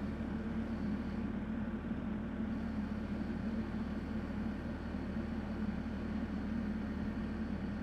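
Excavator engine running steadily at an even pitch, with no change in speed.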